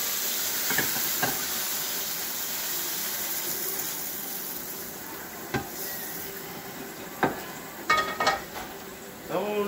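Garlic shrimp sizzling in oil in a hot frying pan, the sizzle slowly dying down after the burner has been turned off. A few knocks of the pan as the shrimp are tipped out, and a ringing metal clatter about eight seconds in as the pan is set back on the gas stove's grate.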